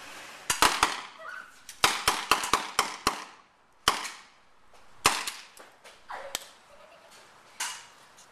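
BB guns firing: a string of sharp pops, a rapid cluster about two seconds in, then single shots roughly a second apart.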